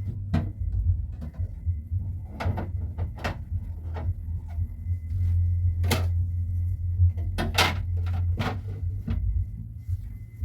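Household handling sounds: a scattering of sharp knocks and clacks, like doors being shut and things being set down, with two in quick succession near the end, over a steady low hum.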